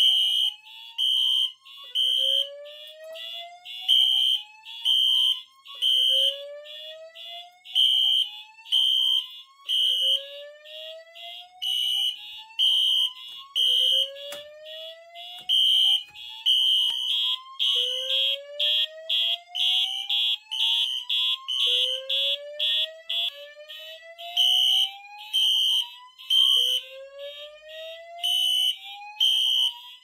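Fire alarm system in alarm. A Wheelock Exceeder horn sounds in temporal code-3 pulses and a Wheelock EHEL1 horn in fast march-time pulses. Under them, a voice evacuation speaker plays a slow whoop, a rising tone that repeats about every four seconds.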